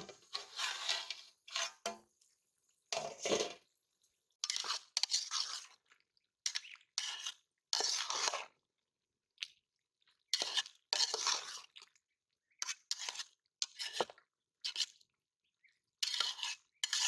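Metal spatula scraping and stirring sliced jackfruit curry in an aluminium cooking pot: a series of short scraping strokes with brief pauses between them.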